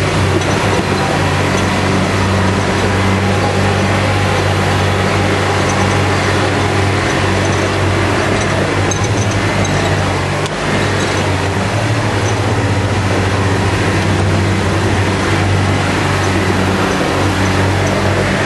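Off-road 4x4's engine running steadily as it crawls along a rough trail, heard from inside the vehicle, with a brief dip and knock about ten seconds in.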